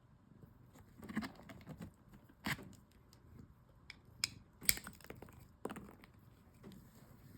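Stone slabs being handled: irregular sharp clicks and knocks of rock against rock or a hard surface, the loudest about two and a half and four and a half seconds in, amid soft rustling of packaging.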